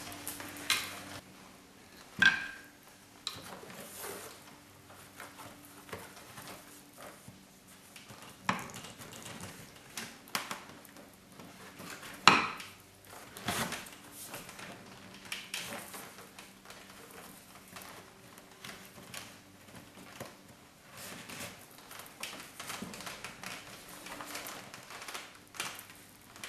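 Hands handling fiber rush cord and the wooden chair frame while tying off the rush under the seat: soft rustling and scraping, broken by a few sharp knocks and clinks, the loudest about two, eight and twelve seconds in.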